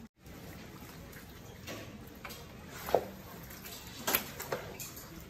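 Pork being stirred in a hot steel wok with a wooden spatula over a faint steady sizzle, with a few sharp knocks of utensil and metal lid against the pan in the second half.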